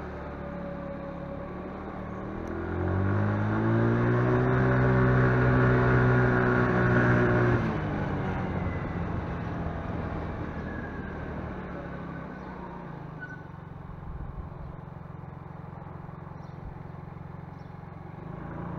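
Motorcycle engine under way: about three seconds in it revs up to a steady, louder note that holds for several seconds, then the throttle closes near the middle and it falls back to a low run with road noise.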